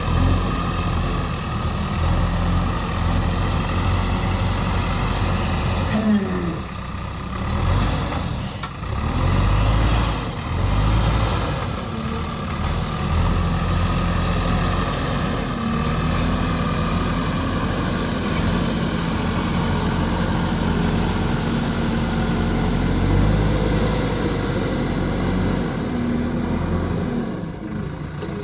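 Diesel engine of a JCB backhoe loader running under working load. Its speed dips and rises several times between about six and twelve seconds in, then it runs steady.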